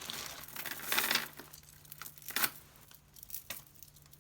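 Plastic bags crinkling and rustling as they are handled, loudest about a second in, followed by a couple of shorter rustles.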